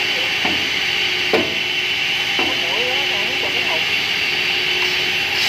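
Pallet block cutting saw running steadily, with three short wooden knocks as blocks are cut or dropped, the loudest about a second and a half in.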